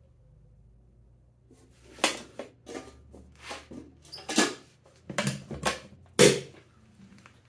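Sharp knocks and clacks of things being set down on a steel ammo can and its lid being handled, starting about two seconds in; the loudest clack comes about six seconds in, as the lid and latch are worked.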